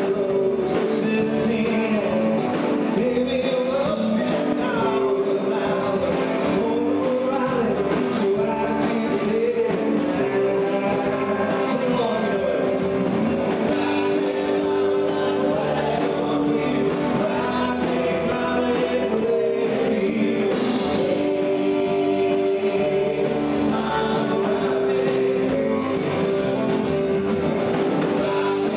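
Country-rock song: a singer over guitars and a backing band.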